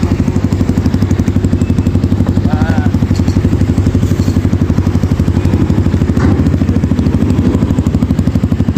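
Kayo T2 dirt bike's single-cylinder engine idling steadily with a fast, even, loud beat.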